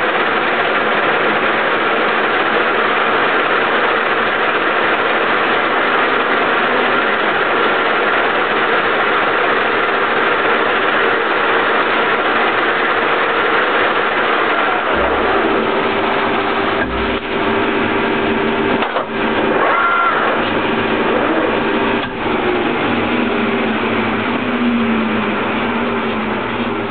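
A Soviet 1K62 engine lathe running, giving a steady, loud mechanical noise with faint whining tones. Past the middle, lower hum tones come in along with a few short knocks.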